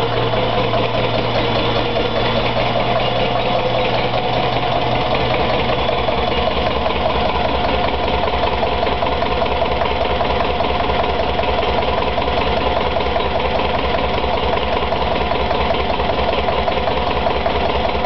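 Metro Listeroid 6/1 CS single-cylinder diesel engine running steadily just after an air start, driving a generator head under electrical load. A low steady hum underneath stops about five seconds in.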